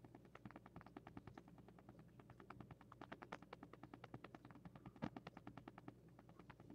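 Near silence with faint, rapid, even ticking, and about five seconds in one faint sharp crack: three suppressed rifles firing at once, just barely audible.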